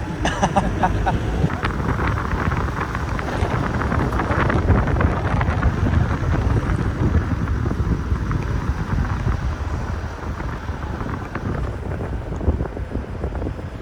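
Wind buffeting the microphone: a steady, low rumbling rush.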